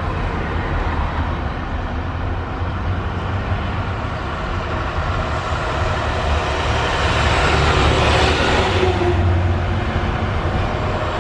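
Vehicle engines running with a steady low rumble and road noise; about eight seconds in the noise swells and brightens as a vehicle passes close by.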